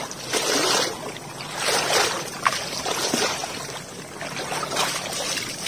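Shallow water sloshing and swishing around legs as a person wades through a flooded field in waders, in uneven surges with each stride.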